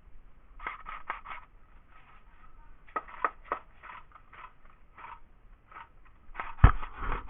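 A series of short scrapes and knocks in clusters, with one heavy thump about six and a half seconds in.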